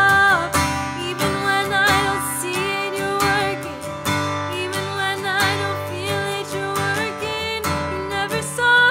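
A woman singing a slow worship song while strumming a steel-string acoustic guitar.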